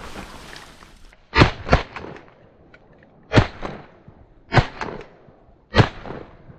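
Four shotgun shots fired at ducks, the first about a second and a half in and the rest a second or two apart, some followed by a fainter crack. A short rushing hiss fills the first second.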